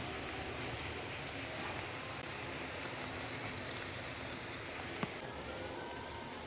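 Halved saba bananas sizzling in hot oil in a pan: a steady frying hiss, with one sharp pop about five seconds in.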